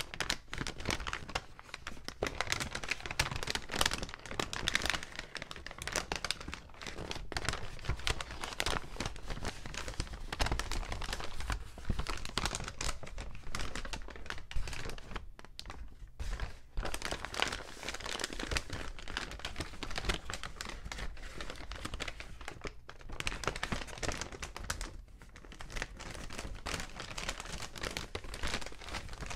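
Paper bags being crinkled and crumpled by hand close to the microphone: continuous dense crackling, with a couple of brief pauses.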